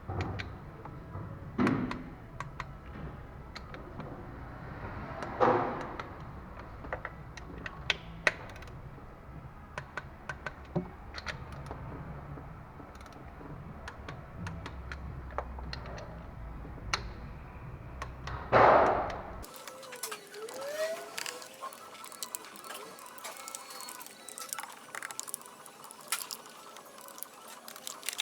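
Hand tools and metal parts worked on a car engine: scattered clicks, clanks and a few louder scrapes over a steady low hum. About three quarters of the way in, the hum cuts off abruptly and only lighter clicks remain.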